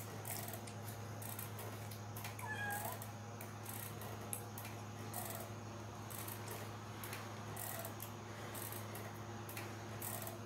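Kitten mewing faintly a few times in short, high calls, over a steady low hum.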